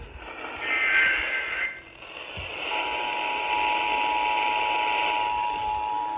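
Emergency Alert System tones over a hissy broadcast feed. First comes a warbling SAME data burst lasting about a second, then a short gap. About halfway in, the steady two-tone attention signal starts and holds.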